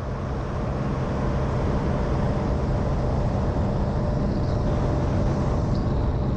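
Ultralight trike's engine running steadily, with the rush of wind over the microphone; the sound swells up over the first second or so.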